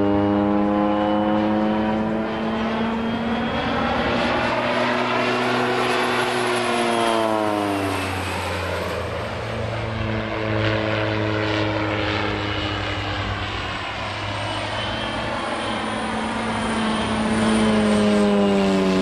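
Pacific Aerospace PAC 750XL's Pratt & Whitney Canada PT6A turboprop engine and propeller in flight: a steady propeller drone with a faint high turbine whine above it, the whole sound dropping in pitch about seven seconds in and again near the end.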